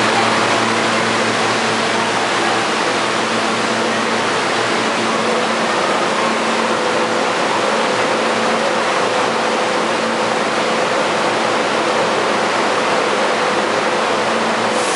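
St. Louis Car Co. R42 subway car standing in the station with its doors open: a steady rushing noise with a low, even hum from its air-conditioning and onboard equipment running.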